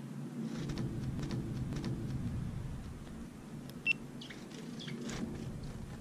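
Steady low rumble in the background, with a few short high chirps from sparrows; the clearest chirp comes about four seconds in.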